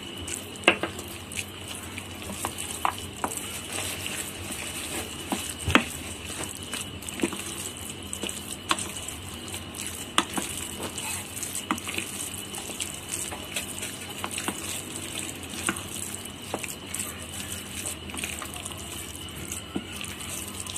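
A spoon stirring thick, wet curd rice in a steel pan, with irregular sharp clicks and knocks of the spoon against the pan, roughly one every second or so.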